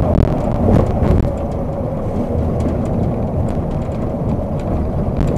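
Steady engine and road rumble heard from inside a vehicle's cab at highway speed, easing a little about a second in as the vehicle slows down.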